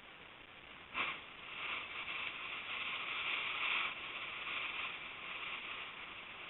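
Rough storm surf: a wave breaks with a sudden crash about a second in, and its hissing wash swells and then slowly fades.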